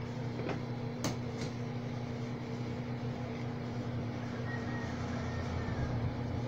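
Steady low electrical hum, with a few light clicks about a second in from a plastic card and phone being handled.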